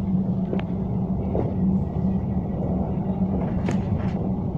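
Tram running slowly along its track, heard from inside the car: a steady hum over a low rumble, with a few faint clicks and knocks.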